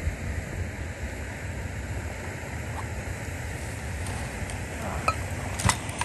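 Wind buffeting the microphone, a rough, uneven rumble throughout. Near the end come two short clinks, the second louder.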